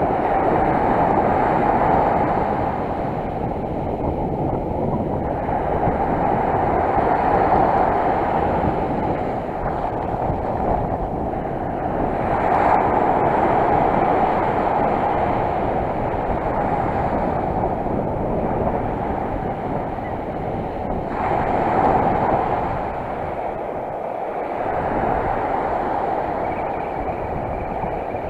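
Sea surf washing on the shore with wind noise: a steady rush that swells and eases every several seconds.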